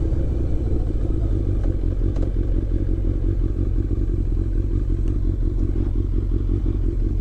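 Motorcycle engine running steadily, a low, fast-pulsing note with no change in revs.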